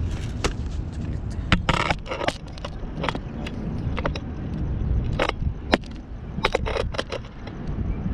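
Handling noise: a dozen or so irregular sharp clicks and knocks over a steady low rumble, with a short scraping rustle about two seconds in.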